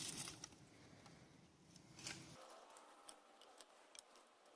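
Faint, scattered clicks and ticks of small dry twigs being handled and laid on a stack of firewood logs.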